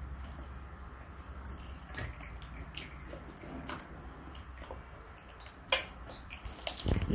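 A toddler chewing and smacking her lips on a chicken wing: faint wet clicks and squelches, with one sharper click about five and a half seconds in, over a low steady hum.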